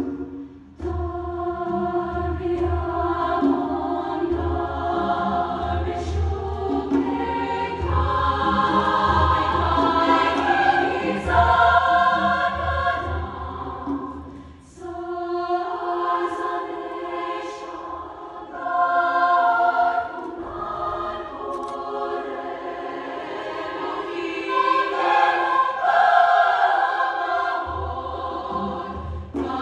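Women's choir singing in harmony, with a cello playing low notes beneath; the singing breaks off briefly about halfway through.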